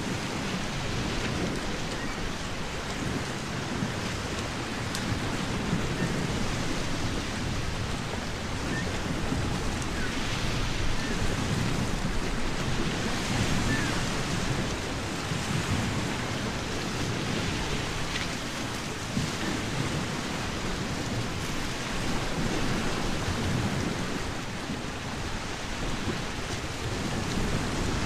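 A nature ambience of steady rushing water, with a low rumble underneath that swells and eases.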